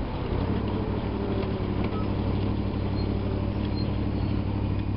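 Honda VFR motorcycle's V4 engine dropping in revs at the very start, then running at a steady low idle as the bike slows and stops, with road and traffic noise around it.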